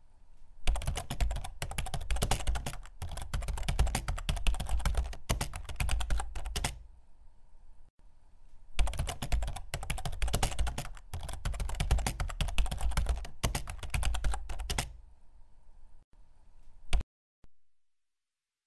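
Computer keyboard typing: rapid key clicks in two long runs separated by a short pause about eight seconds in, thinning out and stopping about seventeen seconds in.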